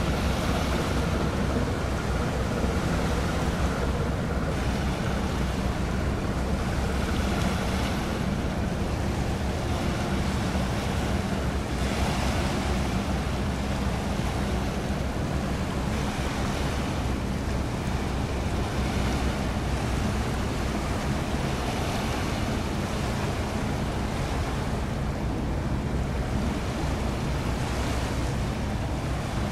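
Steady low drone of a small general cargo ship's diesel engine passing by, over the wash of water and wind noise on the microphone.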